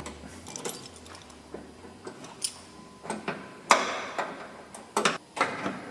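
Irregular clicks and knocks from hands working on a grape destemming machine's security switch and fittings. The loudest knock comes about two thirds of the way through, with a few more in quick succession near the end.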